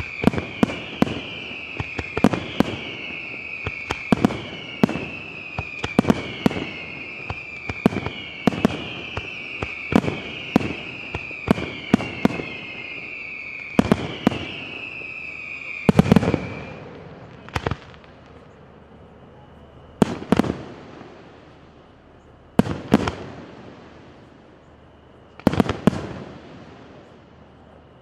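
Aerial firework shells bursting in rapid succession over a chain of repeating falling whistles. About sixteen seconds in the whistles stop, and single loud shell bursts follow every two to three seconds, each trailing off in a long echo.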